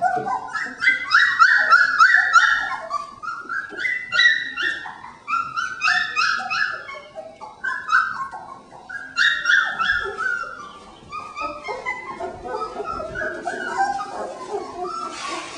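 Three-week-old Border Collie puppies whining and yipping: runs of short, high-pitched cries, loudest in the first ten seconds and softer toward the end.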